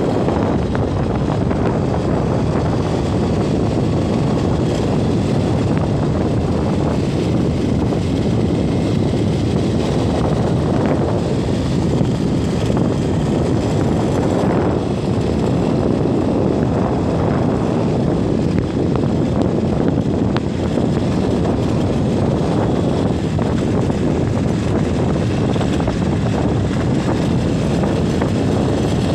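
Steady, loud rumble of a moving vehicle with wind noise on the microphone, even throughout with no changes.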